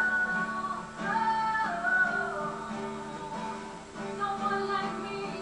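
Background music: strummed acoustic guitar with a melodic line.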